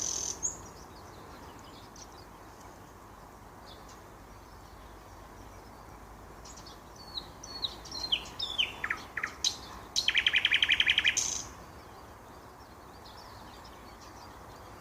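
A nightingale singing in separate phrases with long pauses. After a pause of several seconds, a run of whistled notes, several sliding downward, leads into a loud, fast rattling series of about a dozen notes a second that lasts just over a second. A steady low background hiss runs underneath.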